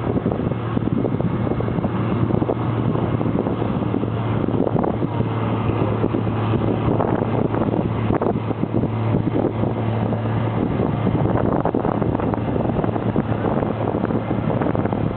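International Harvester 1246 tractor's diesel engine running hard under full load as it pulls a weight sled down the track, a steady low drone with no break.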